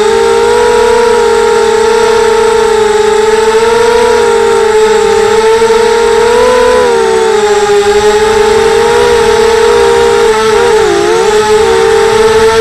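Mini FPV quadcopter's electric motors and propellers whining, picked up by its on-board camera: a steady drone of several close pitches that waver with throttle, dipping and recovering briefly about ten seconds in.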